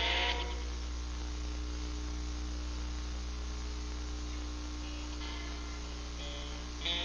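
Steady low electrical hum and hiss, the recording's noise raised by boosted gain on weak camcorder batteries. A guitar note fades out in the first half second, and a few faint guitar notes are plucked about five seconds in.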